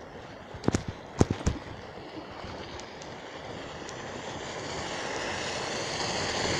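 A few sharp knocks from a bicycle jolting over a rutted dirt road about a second in, then the noise of an approaching pickup truck's engine and tyres growing steadily louder as it comes up and passes close by.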